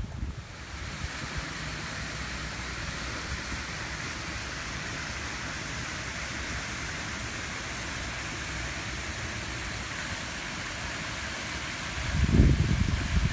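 An outdoor fountain's water jets splashing into their basin, a steady hiss. A gust of wind buffets the microphone with a low rumble near the end.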